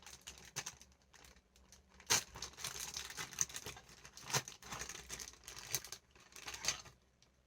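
Thin plastic toy wrapper crinkling and tearing as it is pulled open by hand: irregular sharp crackles that start about two seconds in.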